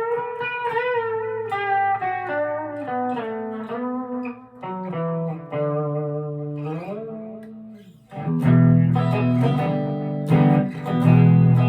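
Chapman ML3 Pro Modern electric guitar played: single-note lines with a slide down in pitch about seven seconds in, then, after a short dip, louder full chords.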